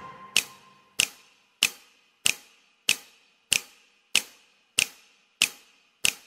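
Sharp ticks repeating at an even pace, a little more than one and a half a second, about ten in all, while a faint fading musical note dies away in the first second.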